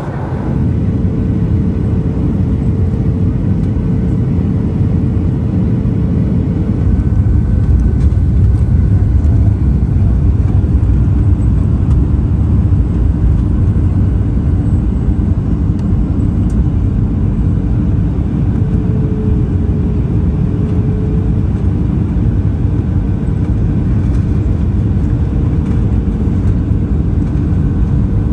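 Cabin noise in a Boeing 737-800 on the descent: a steady low rumble of engines and airflow with a faint hum over it. It gets slightly louder about seven seconds in.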